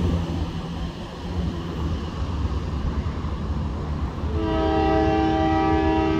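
Low rumble of road traffic. About four seconds in, a CN diesel locomotive's air horn sounds one long multi-note chord, still going at the end.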